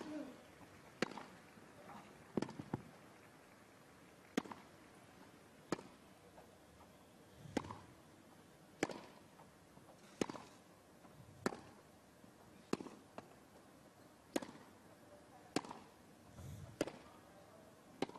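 Tennis ball struck back and forth in a long rally: a sharp racket pop about every second and a half, over a hushed stadium.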